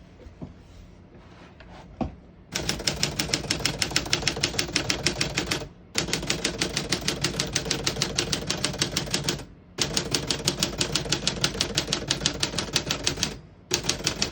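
Typing on a 1950 Smith-Corona Sterling portable manual typewriter: after a couple of quiet seconds with a few light clicks, fast runs of crisp key strikes, about six or seven a second, broken by three short pauses.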